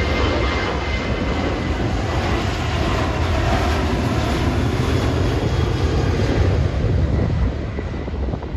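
Jet airliner taking off, its engines giving a loud, steady rumble that fades near the end, with strong wind buffeting the microphone.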